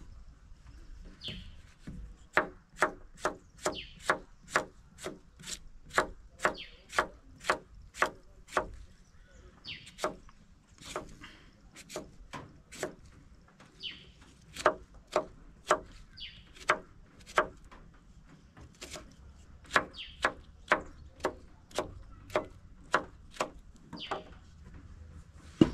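Knife slicing a cucumber into rounds on a thick wooden plank: a steady run of sharp chops of the blade against the wood, about two to three a second, with a few short pauses.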